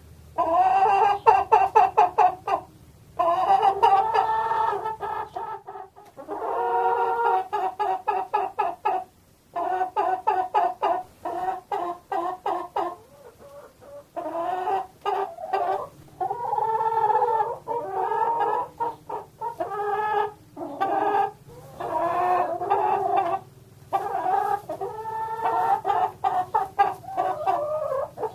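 Domestic chickens clucking and cackling in quick runs of calls, in bouts separated by short pauses.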